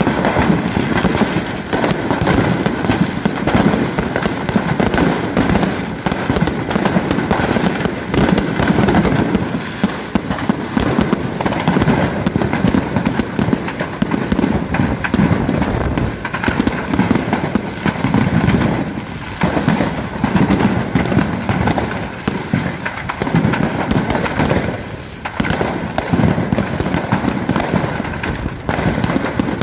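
A fireworks stockpile going off inside a burning building: a dense, unbroken barrage of firecracker pops and bangs, with no let-up.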